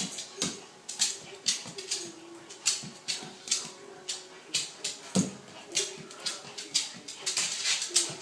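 A dog whining softly and unsteadily. Over it comes a string of light clicks, about two a second, which are its claws tapping on a hard floor as it walks.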